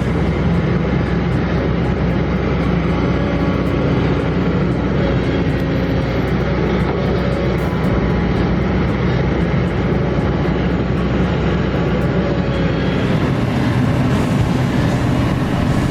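Kobelco SK200 excavator's diesel engine running steadily as the machine works.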